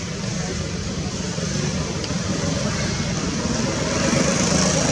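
Steady outdoor background noise: a low rumble under a high hiss, with no distinct event, growing a little louder near the end.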